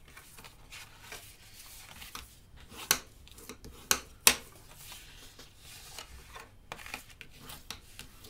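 Cardstock being handled and creased with a bone folder on a tabletop: paper rubbing and scraping, with a few sharp taps about three and four seconds in.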